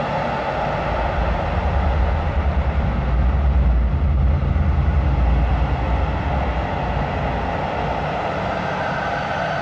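Soma Labs Lyra-8 analog drone synthesizer playing a dense, noisy drone. A deep low rumble swells up about a second and a half in and falls back after about six seconds, and a higher steady tone comes in near the end.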